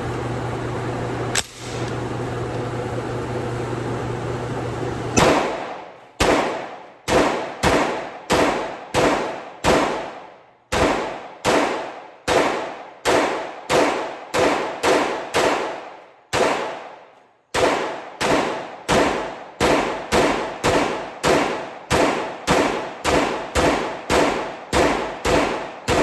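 B&T APC10 10mm carbine firing a long string of semi-automatic shots, each with a ringing tail, at roughly two shots a second, with two brief pauses. Before the first shot there are a few seconds of steady hiss with a low hum.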